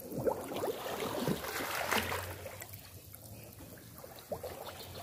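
Water sloshing and trickling as people wade and grope for fish by hand in shallow muddy water, with a louder splashing stretch about two seconds in.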